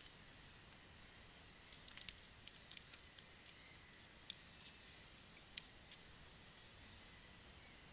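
Light clinking and clicking of fishing tackle being handled while the line is worked free of a landed corvina: a scatter of sharp, high ticks starting about a second and a half in and dying away after about six seconds, over a faint steady hiss.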